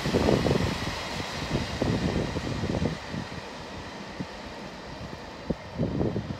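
Freight train of tank wagons rumbling across a steel girder bridge, easing off about three seconds in as the last wagons move away, with irregular low gusts of wind buffeting the microphone.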